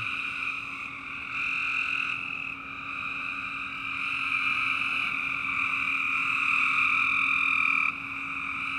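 Breeding chorus of many frogs calling at once, a dense, steady din with no single caller standing out. It drops slightly about eight seconds in.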